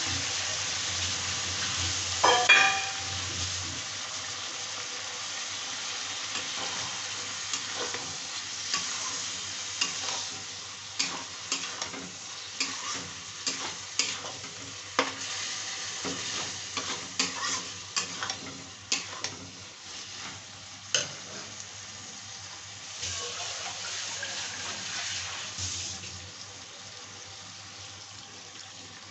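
Chicken curry masala with onions sizzling in a kadhai while a steel spatula stirs and scrapes it, knocking sharply against the pan again and again. There is a loud clank about two seconds in.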